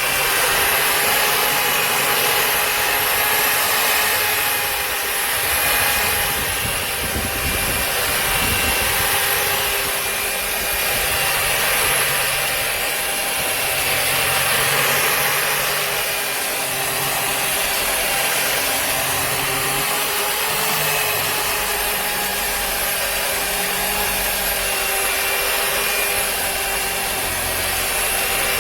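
Electric burnishing (satin) machine, a 1500 W drum brush sander, running steadily with a motor whine under a rough scraping noise from its drum working a surface.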